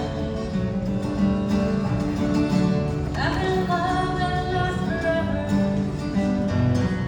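Music: acoustic guitar with a singing voice, a rising slide in pitch about three seconds in.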